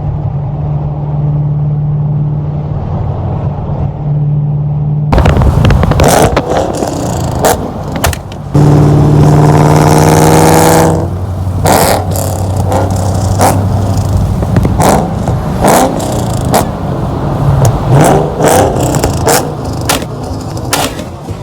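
Supercharged 5.8-litre V8 of a Shelby GT500 running muffled and steady for about five seconds, then loud: a rev held for a couple of seconds, and many sharp exhaust pops and bangs as it shoots flames from the tailpipes.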